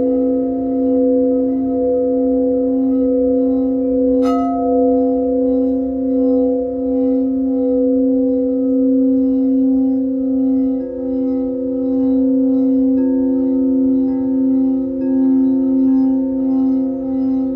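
Several crystal singing bowls played together with mallets, holding steady overlapping tones with a gentle waver in loudness. A mallet strikes a bowl sharply about four seconds in, and another bowl joins with a new tone about eleven seconds in.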